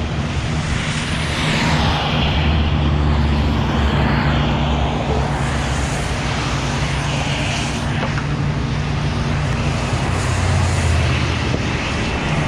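Freeway traffic on wet pavement, with tyre hiss swelling as vehicles pass about two seconds in and again past the middle, over a steady low engine drone.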